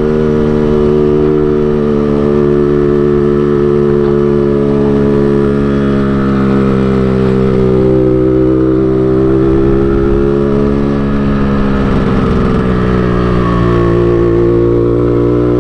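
Yamaha RX-King's 135 cc single-cylinder two-stroke engine running under way, with its Medan-style 'ngorok' (snoring) tuning. The engine note holds fairly steady, sags a little in pitch about three-quarters through and then picks up again.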